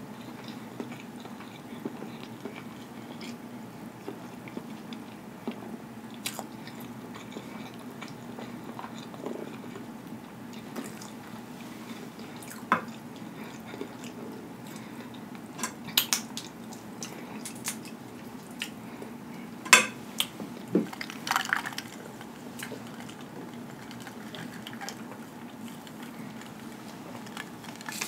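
Eating snow crab legs: chewing and wet mouth sounds, with scattered sharp cracks and snaps as the shells are pulled apart by hand, the loudest about twenty seconds in. A steady low hum runs underneath.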